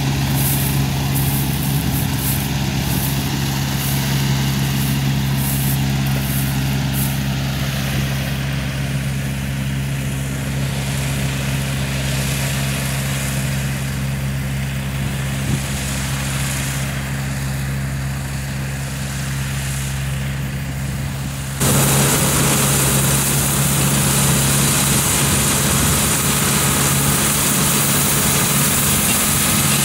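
Small rice combine harvester running steadily while it cuts and threshes ripe rice, an even engine hum with the machinery's clatter over it. About two-thirds of the way through it suddenly becomes louder and harsher.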